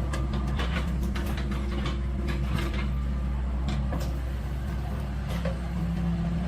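An engine running steadily at a low pitch, with scattered metallic clicks and knocks over it.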